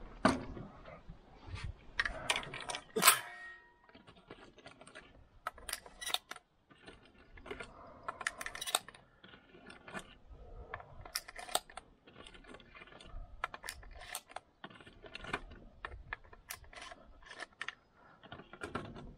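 Shotgun cartridges being handled: a string of small clicks and rattles, with a sharper click about three seconds in.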